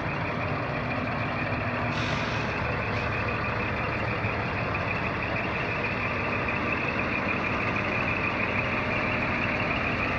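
Scania P420 skip-loader truck's diesel engine idling steadily, with a rapidly repeating warning beep over it. About two seconds in, a short hiss of air.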